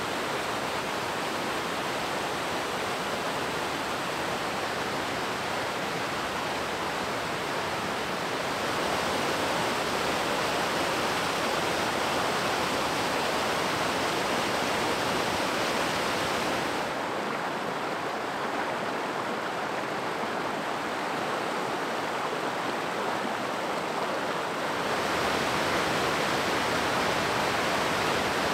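Rushing water of a fast stream running open under shelves of ice and icicles: a steady, even rush. Its tone shifts a few times, duller for a stretch in the middle and a little louder near the end.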